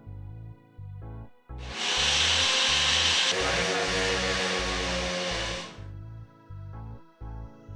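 Electric mixer grinder running for about four seconds, starting about a second and a half in and stopping near six seconds, coarsely grinding soaked mixed dal with chillies and a little water; it is loudest in its first second and a half. Background music with a steady beat plays throughout.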